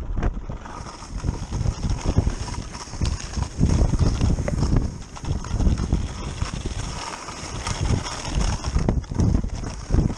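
Touring skis clattering and scraping over icy, wind-crusted snow on a downhill run: an uneven run of rough knocks over a steady high hiss.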